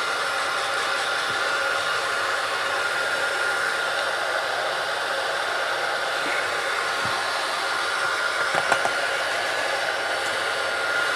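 Hot-air blower running steadily with a constant whine, applying light heat to the plastic back of a Samsung A30 phone to loosen it for removal.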